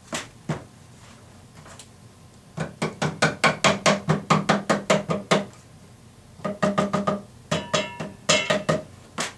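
Rubber mallet tapping a wooden drawer side onto its glued dovetail joint. Two single taps, then a fast run of taps at about five a second, a pause, and two more short runs, each tap with a brief wooden ring.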